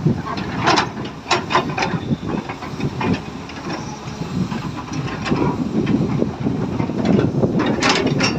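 Heavy diesel earthmoving machinery running with a steady low rumble, with sharp clanks and knocks several times about a second in and twice near the end.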